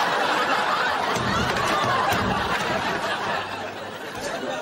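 Audience laughing, mixed with some chatter.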